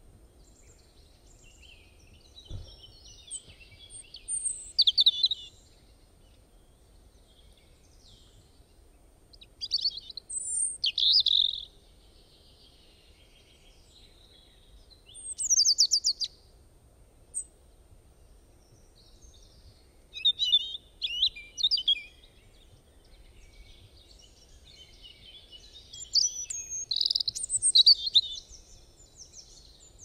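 Birdsong: a songbird singing short phrases of high, rapid chirps, about five bursts of a second or two each, with pauses of several seconds between them, over a faint steady background hiss.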